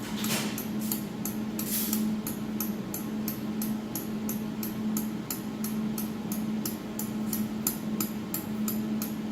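Adjustment knob on a jewelry laser welding machine being turned, clicking evenly about three times a second, over the machine's steady hum.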